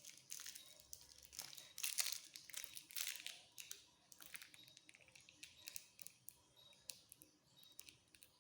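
Faint, irregular small clicks and light rustling from handling small parts inside an open laptop during an NVMe SSD install, busier in the first few seconds and then sparser ticks.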